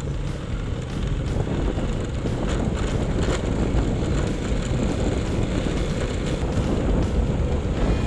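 Motorcycle riding along a dirt trail: steady engine and road rumble with wind on the microphone.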